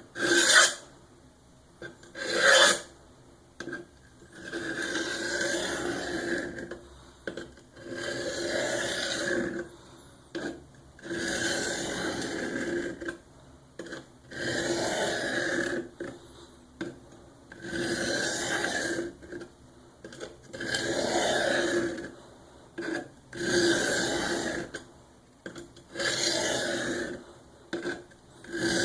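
A Cold Steel SRK's VG-1 steel blade stroked across the hone of a Work Sharp Guided Sharpening System with light pressure to straighten the edge and remove the burr. There are about nine scraping strokes, each a second or so long and a few seconds apart, with light ticks between them.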